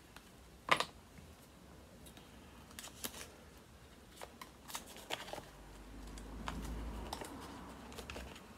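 Small clicks and paper rustling from a square pipe-tobacco tin and its paper liner being handled, with one sharp click about a second in and a dull low rumble of handling a little past the middle.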